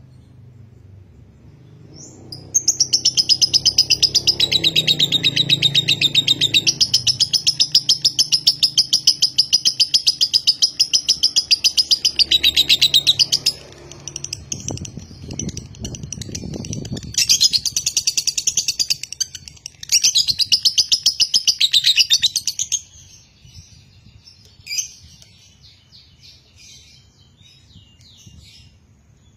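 Fischer's lovebird giving a long, rapid, shrill chattering trill, the extended 'ngekek' that fanciers call konslet: one unbroken run of about ten seconds, then two shorter bursts of a few seconds each, trailing off into softer scattered chirps near the end.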